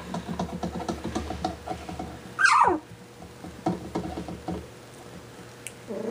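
Three-week-old goldendoodle puppies playing, with small squeaks and grunts, and one loud high yelp about two and a half seconds in that falls steeply in pitch.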